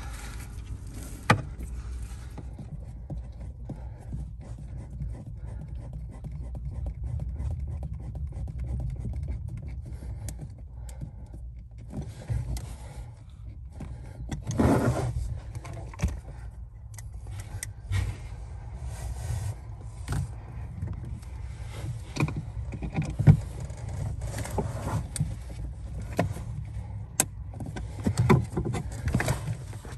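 Scattered plastic clicks, scrapes and rattles as a Jeep Wrangler's blend door actuator is wiggled back into its mount under the dashboard, over a steady low rumble. A few sharper clicks stand out, one about a second in and two more near the end.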